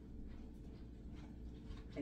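Quiet kitchen room tone: a steady low hum, with a few faint taps and a short, louder sound right at the end.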